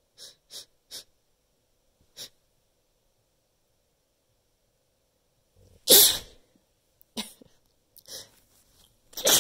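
A person sneezing, set off by chhinkni, a sneeze-inducing herb snuff: a few quick short sniffs at first, then one loud sneeze about six seconds in, softer sounds after it, and another sneeze at the very end.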